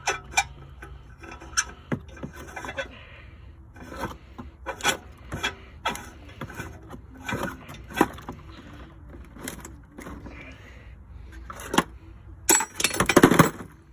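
An oxygen sensor being hand-threaded into the bung of a removed exhaust manifold: metal threads scraping, with clicks and knocks as the sensor and manifold are handled. A louder rasping scrape lasting about a second comes near the end.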